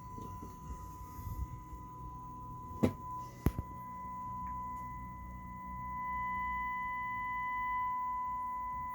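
Steady pure sine test tone, a 1 kHz test signal, played through a Marantz 2238B stereo receiver during a power-output test, with a low hum beneath it. Two sharp clicks come about three seconds in.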